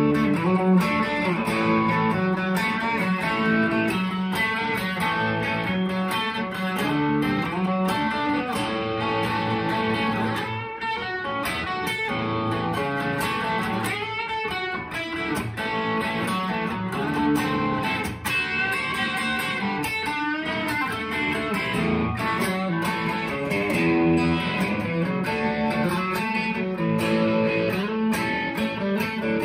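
Gibson ES-335 VOS semi-hollow electric guitar with humbucker pickups, played through a Mesa Boogie Mark V amplifier in a continuous stream of phrases with a warm tone. Notes waver in pitch about eleven and fourteen seconds in.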